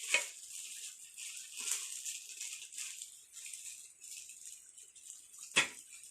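Rustling and rattling as a small baking set is handled, with two sharp knocks, one just after the start and one near the end.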